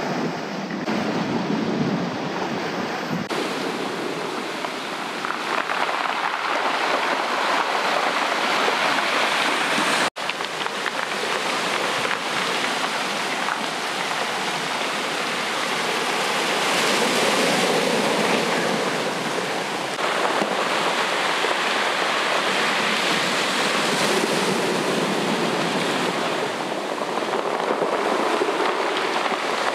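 Ocean surf breaking and washing up a pebble beach, the noise of the water swelling and easing every several seconds, with a split-second gap about ten seconds in.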